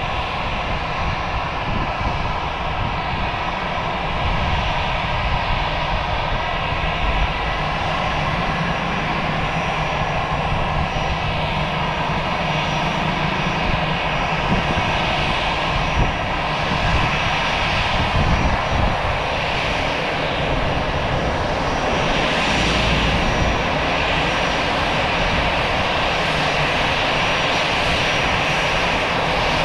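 Jet engines of an Airbus A319-111 running with a steady roar and a high whine.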